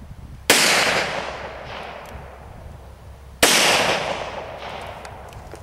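Two shots from a Taurus Judge revolver firing .45 rounds, about three seconds apart, each a sharp crack followed by a long fading echo.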